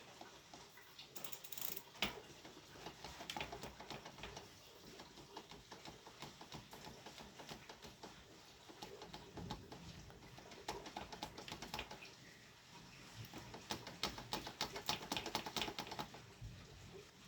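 Small metal bicycle parts being handled: rapid light clicking and rattling from the crank and bottom bracket pieces and tools as they are taken apart, with a sharper click about two seconds in and a busier run of clicks near the end.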